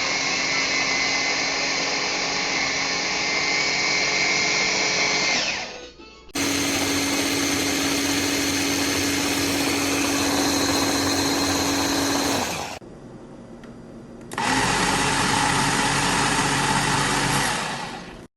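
A mini electric food processor's motor running steadily in three separate runs of a few seconds each. It stops briefly about six seconds in and again near the end, where only a quieter hum is left before the last run.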